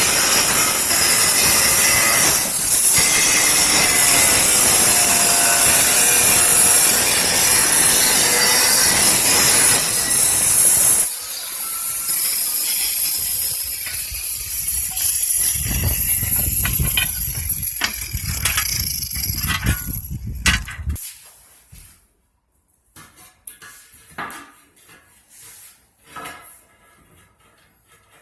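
Angle grinder cutting a large porcelain floor tile: a loud, steady high whine with cutting noise for about eleven seconds, then a quieter stretch of grinding that fades out about twenty seconds in, followed by a few light knocks as the tile is handled.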